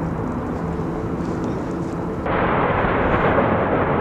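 Steady noisy rumble of an explosive volcanic eruption venting ash, with no distinct blasts. About two seconds in it cuts abruptly to a louder stretch of the same kind of rumble.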